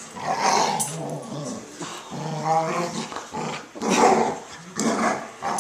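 Two Australian Shepherds play-wrestling, growling in repeated rough bursts, one of them drawn out and more pitched about two and a half seconds in.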